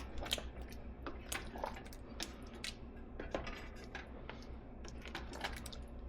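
Spoon stirring a pot of simmering tomato sauce, with light, irregular clicks and scrapes of the spoon against the pot.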